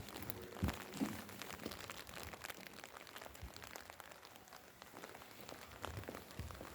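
Light rain falling, a steady soft hiss scattered with many small sharp drop ticks, and a couple of soft footsteps about a second in.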